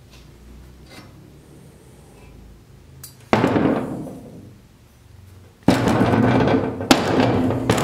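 Heavy steel suspension spindle knocked down onto a steel workbench top: a sudden metallic clank that rings and fades, then a second clank about two seconds later that keeps ringing, with a couple of smaller knocks near the end.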